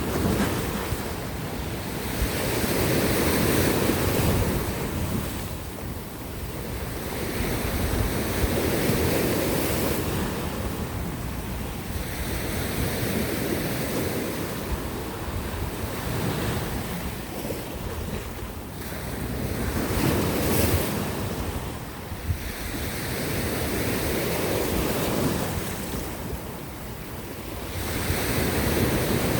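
Sea waves breaking on coastal rocks and washing back, the surf swelling and falling away about every five to six seconds, with wind buffeting the microphone.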